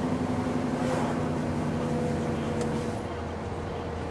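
Truck diesel engine running steadily, heard from inside the cab as a low drone. Its pitch sags slightly, and it drops in level about three seconds in.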